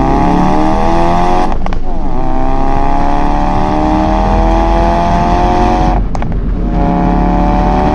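Ford Focus RS Mk3's turbocharged 2.3-litre four-cylinder accelerating hard through the gears. Its pitch climbs steadily in each gear and breaks twice for upshifts, about one and a half seconds in and again at about six seconds, with a sharp pop at each shift.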